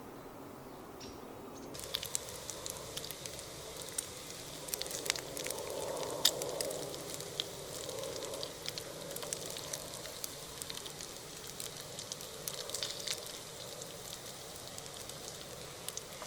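Bacon frying in a pan: a steady sizzle with many small sharp pops, starting suddenly about two seconds in.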